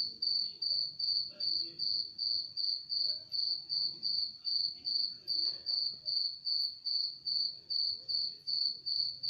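A cricket chirping in a steady, even rhythm, about three short high-pitched chirps a second, over faint low background noise.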